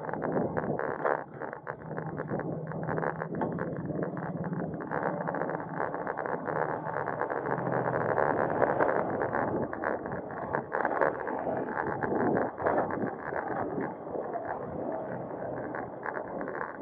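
Road and traffic noise from a moving bicycle: a constant clatter of small rattles and clicks over a noisy rush, with a motor vehicle's engine humming steadily through the first half and fading out about halfway.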